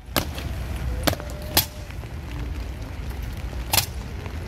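Honour guards' boots striking wet stone paving in a slow, high-kicking parade step: four sharp, irregular impacts over a steady low rumble.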